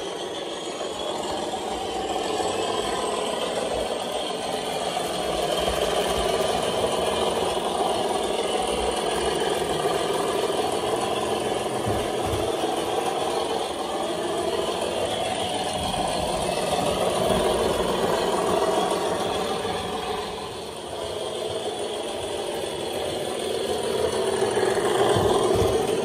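DCC sound decoder in an OO gauge Class 37 model playing the English Electric diesel engine working hard under power, with the rattle of the model train running on the track. The sound dips briefly about twenty seconds in and grows louder near the end.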